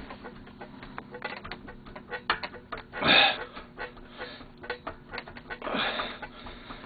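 Scattered metallic clicks and taps of engine parts and hand tools being worked on a snowmobile engine during teardown, with a louder rasping scrape about three seconds in and a softer one near the end.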